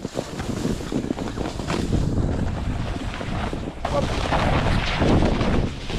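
Snowboard sliding and scraping over snow in a continuous rush, with wind buffeting the microphone.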